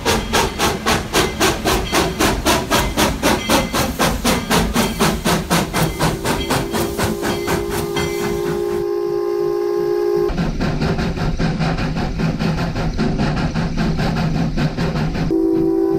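Narrow-gauge steam locomotive pulling away, its exhaust chuffing about three to four times a second and fading. Over this comes a steady, long-held steam whistle, followed by further steady tones.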